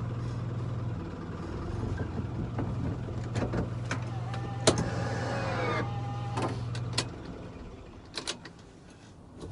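A truck engine idling steadily, then cut off about seven seconds in. Several sharp clicks sound from the cab, and a short whirring motor whine comes in the middle.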